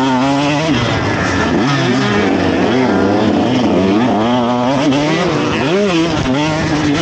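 KTM SX150 single-cylinder two-stroke motocross engine at racing speed, revving up and down repeatedly as the rider works the throttle and gears, its pitch rising and dropping several times before holding steadier near the end.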